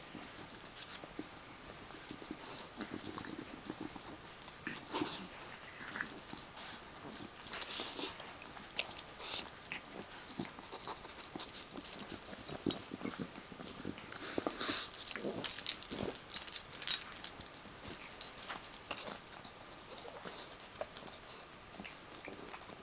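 Puppy playing with and chewing a broken toy: scattered small clicks and scrapes, with a few short, slightly louder dog sounds a little past the middle.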